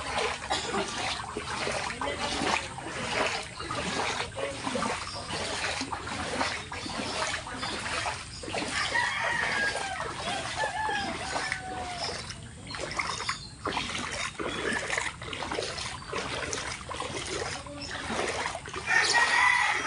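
Footsteps wading through floodwater: a steady run of splashes and sloshing as the legs push through the water. A few short bird calls sound about halfway through.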